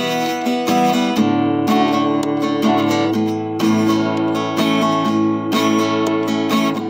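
Steel-string acoustic guitar strummed in a steady rhythm, about two strums a second, the chords ringing on between strokes.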